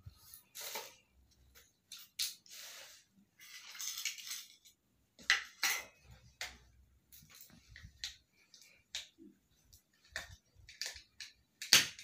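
Scuffling and rustling as a hand plays with a kitten on a cloth: irregular short scrapes and taps, the loudest one near the end.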